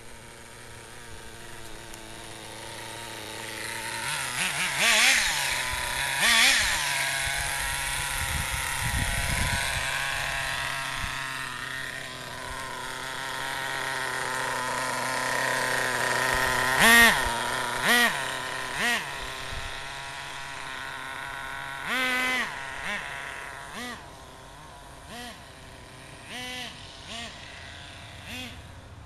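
Small two-stroke nitro engine of a Redcat Tornado S30 1/8-scale RC buggy running, with repeated short throttle blips that rev it up and let it drop back, between stretches of steady running.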